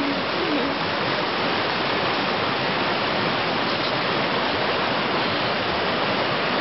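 Rushing mountain river: a steady roar of fast white water tumbling over rocks.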